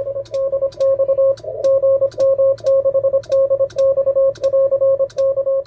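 Morse code being sent on a ham transceiver: a steady sidetone at one pitch keyed on and off in dots and dashes. Sharp clicks come with many of the key-downs and key-ups, the amplifier's keying relay switching in step with the transmission.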